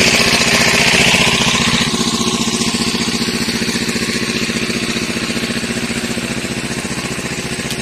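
Engine-driven water pump running steadily with a rapid, even chugging as it pumps water through its hose. It grows gradually fainter.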